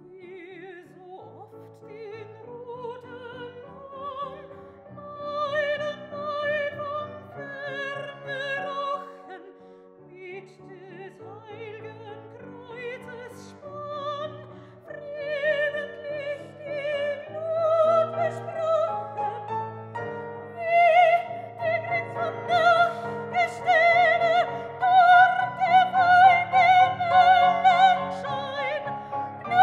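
Soprano singing a dramatic German art song with a wide vibrato, accompanied by grand piano. The voice grows louder and higher from about two-thirds of the way in.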